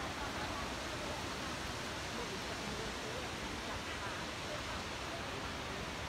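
Steady rushing of the Bousra waterfall, an even wash of falling water, with faint voices over it.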